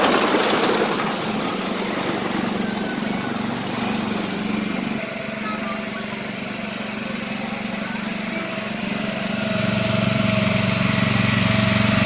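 Small engine of an antique-car amusement ride running with a steady hum, growing louder as the car comes closer near the end. A brief rush of noise at the very start.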